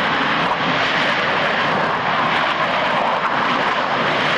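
Panavia Tornado's twin RB199 turbofans giving a loud, steady roar on the landing run as the jet brakes, with the thrust-reverser buckets deflecting the exhaust forwards.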